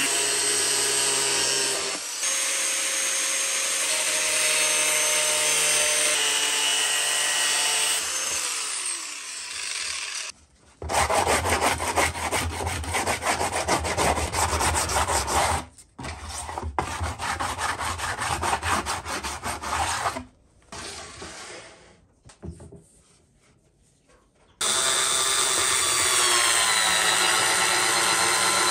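Angle grinder cutting through a PVC pipe, its motor spinning down about eight to ten seconds in. Then a sanding block rubbed rapidly back and forth along the cut plastic edge. After a quiet stretch, a small electric screwdriver runs steadily, its pitch dipping near the end as it drives a screw.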